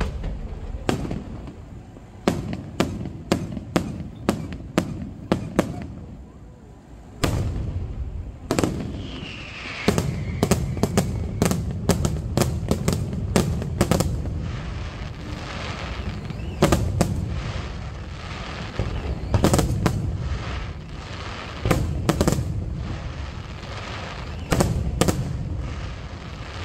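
Aerial fireworks display: shells bursting in sharp bangs, at first a steady series of about two a second, then from about ten seconds in a dense barrage with continuous rumbling between the bangs.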